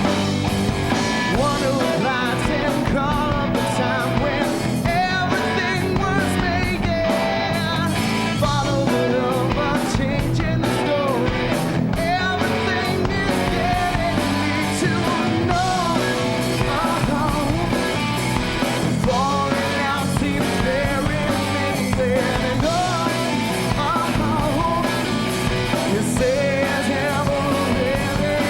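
Rock band playing a song live, a lead vocalist singing over electric guitars and drums.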